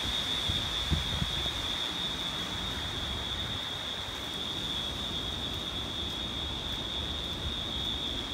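Hurricane-force wind gusting through trees, with rain, rumbling and buffeting on the microphone, over a steady high-pitched tone.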